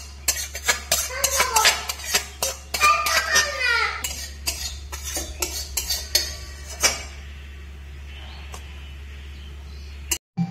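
Metal spatula scraping and knocking against a metal wok as thick curry is poured out into a steel bowl: a dense run of clinks and scrapes that thins out after about seven seconds.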